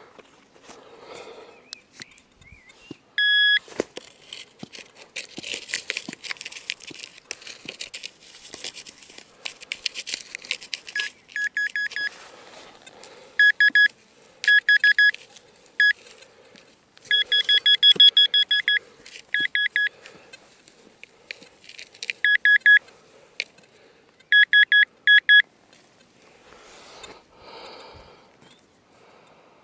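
A metal detecting pinpointer probing a freshly dug hole beeps in bursts of fast pulsing tone, again and again through the latter half, with one short beep early on. Before the beeping, hands and a digging tool scrape and rustle through soil and grass.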